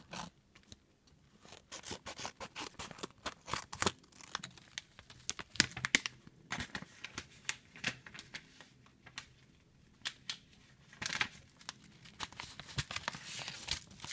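Scissors cutting open a metallised anti-static shielding bag: a quick run of short, sharp snips. Near the end the foil bag crinkles as it is handled.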